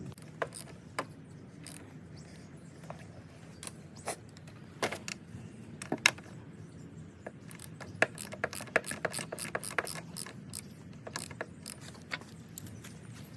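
Hand ratchet wrench clicking in short runs, with scattered metal clinks and knocks, as fasteners are undone while the top end of a two-stroke dirt bike engine is stripped. A quick run of clicks comes about eight to ten seconds in.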